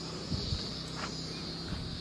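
Steady high-pitched insect drone from the summer fields, with a low steady hum underneath and a couple of soft footsteps early on.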